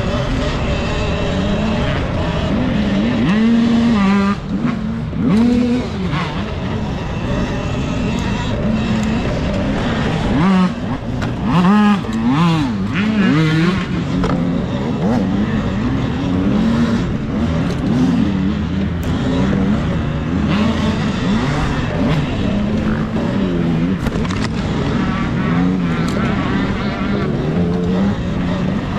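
Talaria Sting electric dirt bike with a K.O. F-Spec motor, its motor whine rising and falling quickly in pitch as the throttle is worked, over a steady rush of noise.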